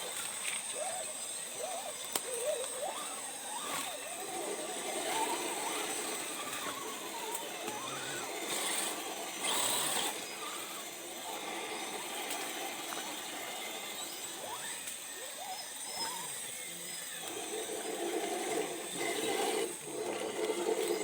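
Small RC crawler's electric motor and gears whining as it crawls, the pitch rising and falling with the throttle, over a steady hiss, with a few short scraping bursts about nine seconds in.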